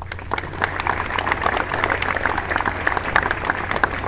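Audience applauding: dense clapping that begins at once and thins out near the end.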